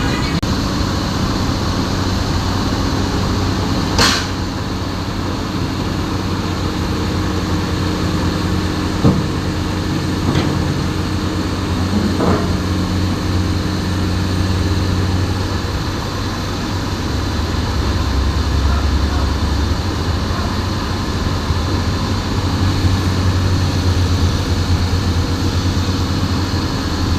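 Heavy diesel engine running steadily, with a sharp metallic knock about four seconds in and a few fainter knocks later.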